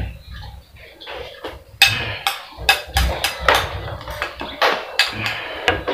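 A spoon clicking and scraping against a small bowl while food is scooped, a run of sharp irregular clicks, about two a second.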